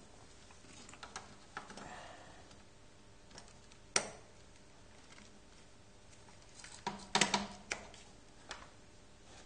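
Scattered light clicks and knocks over faint room noise, with a sharp click about four seconds in and a quick cluster of clicks near the end.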